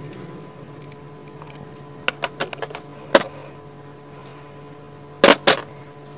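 Chrome-vanadium socket-set ratchet and sockets being handled. There is a quick run of light metal clicks about two seconds in, a sharper click a second later, and two loud clacks near the end, all over a steady low hum.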